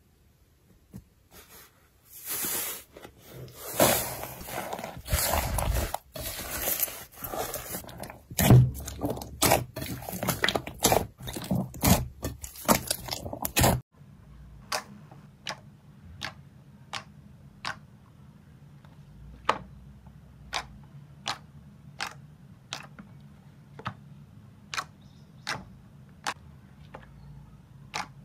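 Slime being handled: dense crackling and crunching for several seconds, then after a cut a series of separate sharp pops or clicks, about one or two a second.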